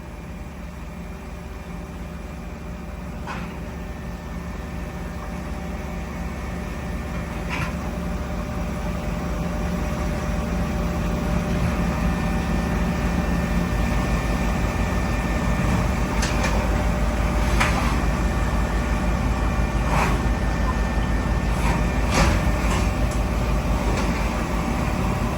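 CNC machine tool running during machining: a steady low hum with a few steady whining tones, slowly getting louder, and a handful of sharp clicks scattered through it.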